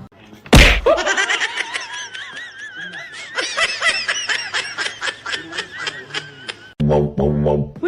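A sharp thump about half a second in, then a long run of high-pitched, pulsing laughter. Music comes in near the end.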